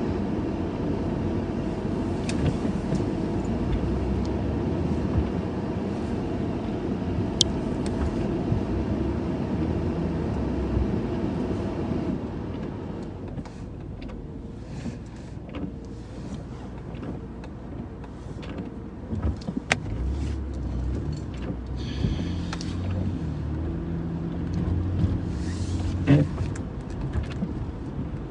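Motor vehicle road and engine noise, steady at first and easing off about twelve seconds in, with a few sharp clicks and knocks in the quieter part.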